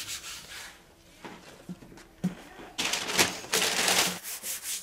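Hands rubbing and smoothing paper and book cloth by hand: a dry, scratchy swishing in quick strokes, with a couple of soft knocks, and a louder stretch of brisk rubbing starting about three seconds in.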